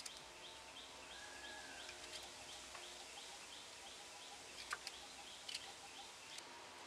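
Potato peeling with a Y-shaped vegetable peeler, heard faintly: a few light clicks and scrapes of the blade, clustered a little before the end. Behind it, a steady run of short high chirps, about three a second, with one brief whistle about a second in.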